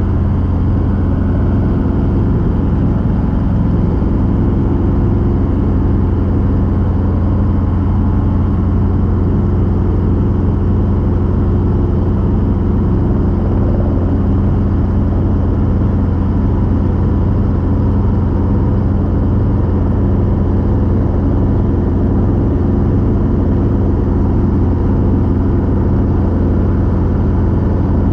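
Robinson R22 helicopter running steadily: a loud, even drone from its piston engine and rotor, with a fast fine pulsing and no change in pitch.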